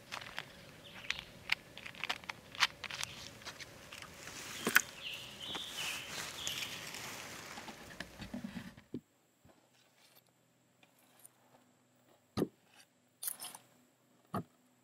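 Close handling noise in grass: rustling with sharp clicks and taps, building to a longer stretch of rustling about four to eight seconds in. It then cuts to near silence broken by a few faint ticks.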